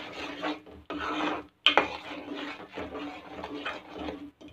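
A spoon scraping and stirring thick masala paste around a pan in repeated rasping strokes, with short pauses and a sharp clink a little under two seconds in.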